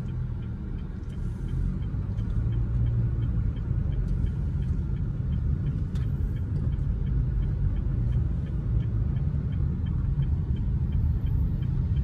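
Car interior road noise while driving: a steady low rumble of engine and tyres, with a faint, even ticking about two to three times a second.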